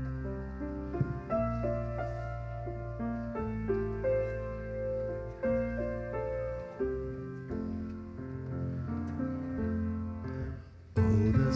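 Church keyboard playing the slow introduction to a hymn: a melody over long held bass notes. Voices come in singing the hymn about eleven seconds in.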